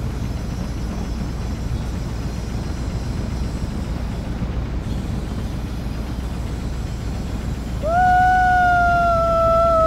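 Steady low rumble of a pickup truck driving, heard from its open bed. About eight seconds in, a young man lets out one loud, long howl that holds its pitch and then breaks off.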